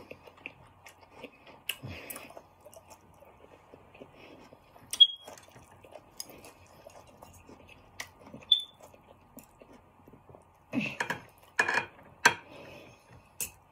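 Close-up eating sounds: chewing and mouth noises with small utensil clicks, and two short high clinks, like a fork striking a plate, a few seconds apart. Louder bursts of chewing come near the end.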